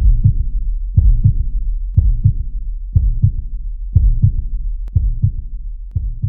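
Heartbeat sound effect: a low double thump, lub-dub, about once a second, slowly fading, with a short click about five seconds in.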